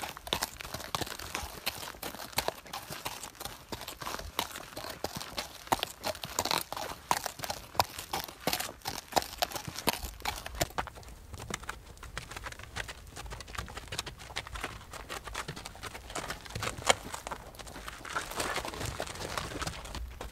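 Horse hooves clip-clopping on hard ground: a quick, irregular run of sharp hoof strikes, with a low rumble joining about halfway.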